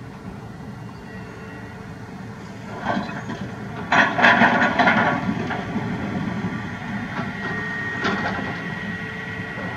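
Komatsu PC350 hydraulic excavator's diesel engine running steadily under load as its bucket digs into a pile of large boulders. Rocks clatter and scrape loudly about four to five seconds in, with smaller knocks near three and eight seconds.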